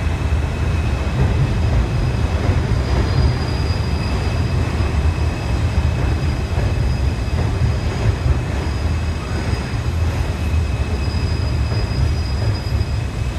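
R160B New York subway train rolling along the platform: a steady low rumble of wheels on rail, with a thin high-pitched squeal or whine held through most of it.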